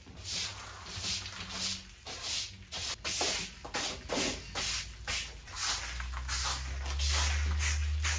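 A broom sweeping debris across cardboard and paper floor protection, in brisk scratchy strokes about two a second. A low steady hum comes in about six seconds in.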